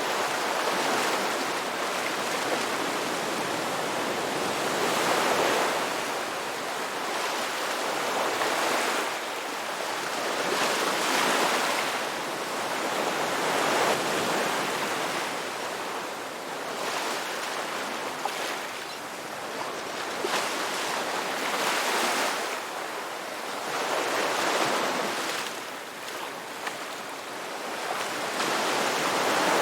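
Ocean waves breaking and washing on the shore, a steady rushing surf that swells and eases every few seconds.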